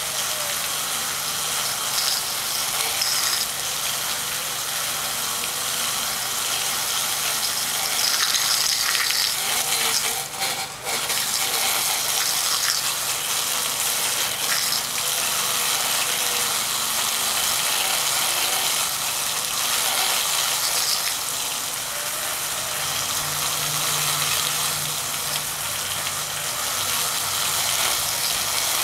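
Water jets spraying steadily onto a 120 mm computer fan and splashing off it, a constant hiss that dips briefly about ten seconds in.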